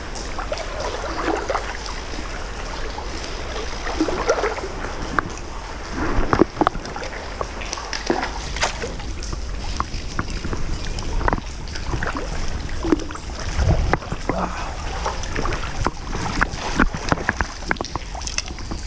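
Steady rush of river current and wind on the camera's microphone, broken by irregular knocks, clicks and splashes as a hooked rainbow trout is played on a fly rod and brought to a landing net near the end.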